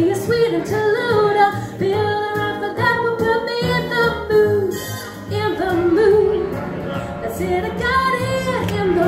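A woman singing a 1940s-style song into a microphone, amplified through a PA speaker, with backing music underneath. Her voice moves between notes and holds some of them.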